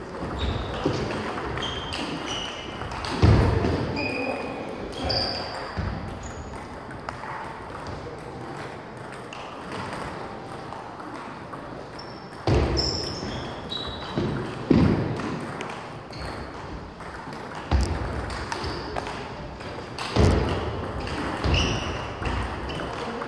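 Table tennis balls bouncing and clicking in a gym hall, with scattered louder knocks, short high squeaks and background voices.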